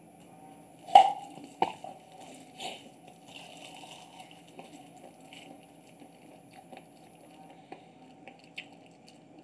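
Cats eating from a thin plastic food tray: a sharp knock about a second in, two smaller clicks soon after, then scattered small ticks and soft chewing.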